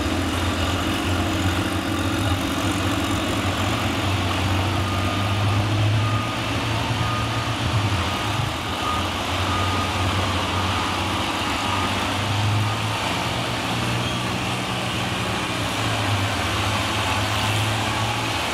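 Six-cylinder engine of a 1948 Oliver 88 pulling tractor idling steadily. A repeated high beep sounds through the middle.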